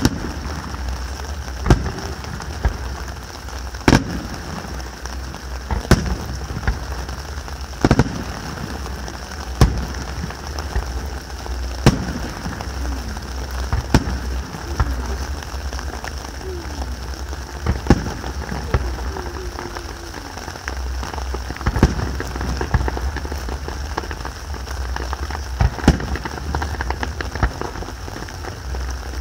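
Aerial firework shells bursting at a distance, sharp bangs about every one to two seconds over a constant hiss and low rumble.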